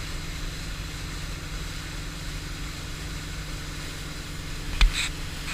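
Boat engine idling steadily with a low, even hum. A single sharp knock comes near the end.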